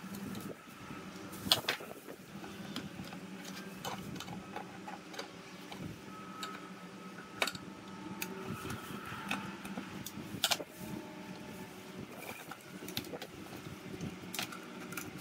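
Gloved hands handling the oily inner assembly of an X-ray tube housing: scattered small clicks and knocks of hard plastic and metal parts, the loudest about one and a half seconds in and a few more later. A steady low hum runs underneath.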